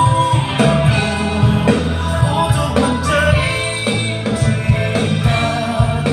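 Live band music with a singer, played loud through a large sound system, with a strong bass line.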